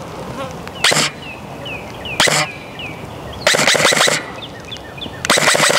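Airsoft rifle firing at a distant target: two single shots about a second and a half apart, then two short rapid runs of shots.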